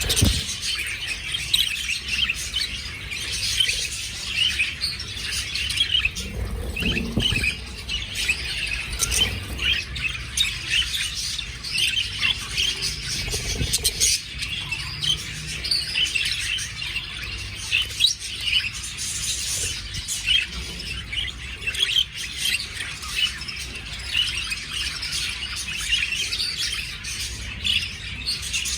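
Budgerigars chattering, a constant stream of quick, overlapping high chirps and squawks.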